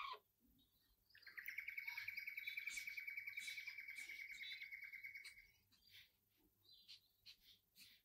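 Felt-tip marker squeaking across paper while a long line is drawn. It is a high, steady squeak with a fast flutter, starting about a second in and lasting about four seconds, followed by a few faint short strokes.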